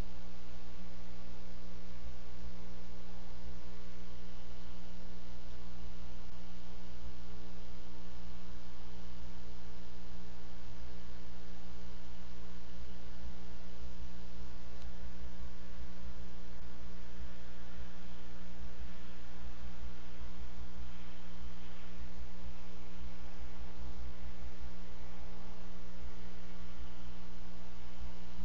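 Steady electrical hum with an even hiss, unchanging throughout: the background noise of a wildlife camera's audio line, with no bird calls standing out.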